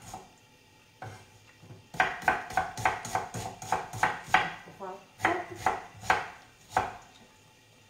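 Kitchen knife chopping a red onion on a wooden cutting board: a run of quick, sharp knocks, about three a second, starting about two seconds in, with a short pause midway.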